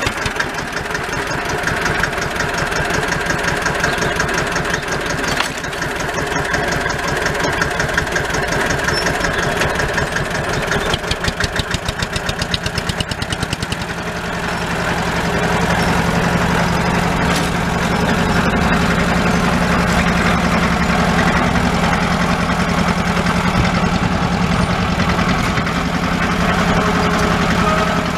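Deutz D15's air-cooled single-cylinder diesel engine running under load while pulling a plough, with an even, regular beat of firing pulses. About halfway through, the sound turns louder and steadier, with a low hum.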